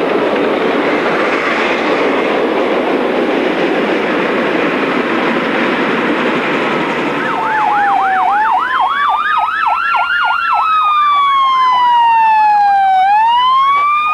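A train running on past the crash site, heard as a dense rumble that fades after about seven seconds. Police car sirens then come in, a fast yelp and a slow rising-and-falling wail sounding together, with the wail carrying on alone after the yelp stops.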